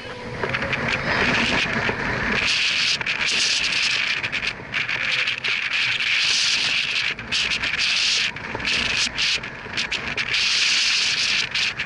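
Wind blowing across the camera's microphone: a loud, gusty hiss with many brief dropouts.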